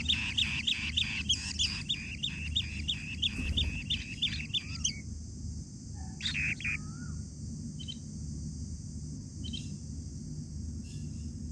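Asian bee-eater nestlings calling in their burrow nest: a fast run of sharp, repeated chirps, about three a second, for the first five seconds, then a few single calls spaced out. A steady high hiss runs underneath.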